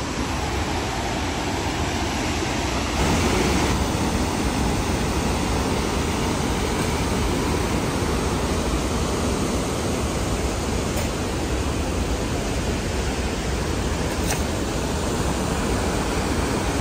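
Steady rushing noise with no distinct events, a little louder from about three seconds in.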